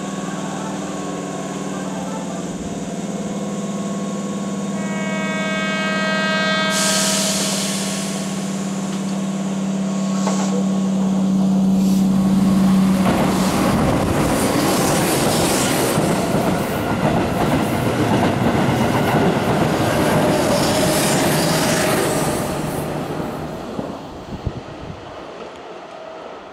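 Electric train horn sounding for about two seconds over a steady low hum. Then, from about thirteen seconds in, a Keihan red-and-yellow express train runs through the station at speed with a loud rumble and rattle of wheels on the rails, which fades away near the end.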